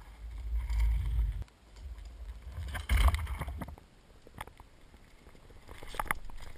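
Mountain bikes riding past close to the ground on a leaf-covered dirt trail: tyres crunching over earth and leaves, with clicks and rattles from the bikes. It is loudest about three seconds in, with another run of sharp clicks near the end as a bike passes right by.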